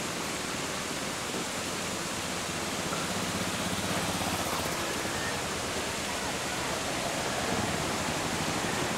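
Steady wash of noise from a large fountain's falling water mixed with the hum of city traffic around the square.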